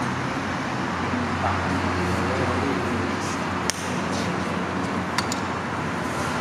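Steady low rumbling background noise with a hum. A sharp click from the caulking gun sounds about halfway through, then two quick clicks together about five seconds in.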